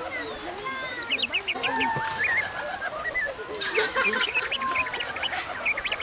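A flock of many birds calling at once: a busy chorus of short chirps, whistles and gliding calls overlapping throughout.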